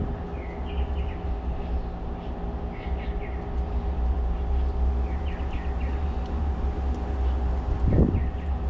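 A steady low drone with a constant hum, like an engine or machine running, with birds chirping in short groups every second or two. A single thump comes about eight seconds in.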